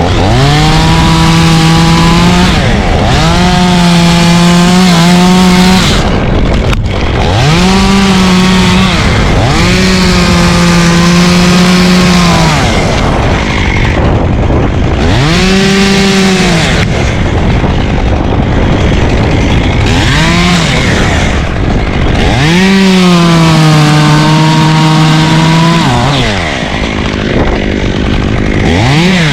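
Chainsaw cutting limbs on a ponderosa pine, revving up to full throttle and holding there for a second or three before dropping back to idle, about seven times over.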